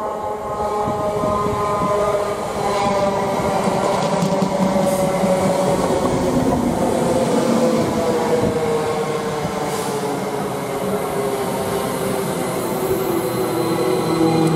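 Greater Anglia Class 321 electric multiple unit passing at speed: wheel and track rumble under a whine of several tones that slowly fall in pitch as the train goes by.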